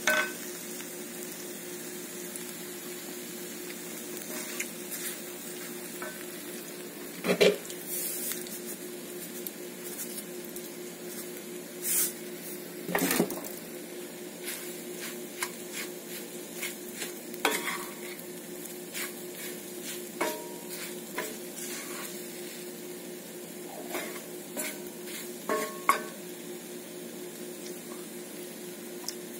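Wooden spoon stirring and scraping scrambled egg around a cast-iron skillet: irregular knocks and scrapes of the spoon on the iron, a few sharper, over a steady hiss.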